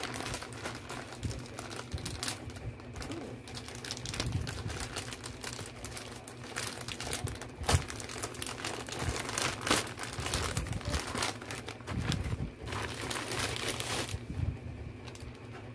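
Plastic courier mailer crinkling and rustling as it is torn open and handled by hand, with a few sharper crackles around the middle; it quietens near the end.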